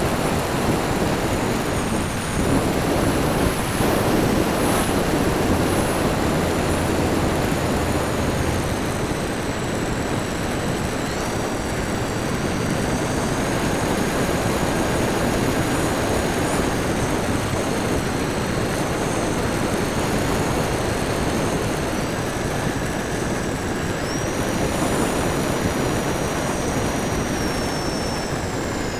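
Onboard sound of a radio-controlled Transall C-160 scale model in flight: heavy wind rush on the wing-mounted camera's microphone, with a high motor and propeller whine that steps in pitch a few times.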